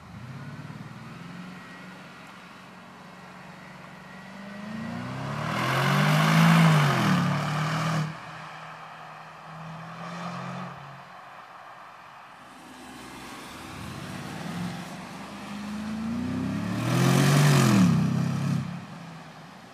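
BMW 750Li's twin-turbo V8 with a Dinan aftermarket exhaust idling with a low rumble, then revved up and let fall back twice, the exhaust note swelling and turning raspier at the top of each rev.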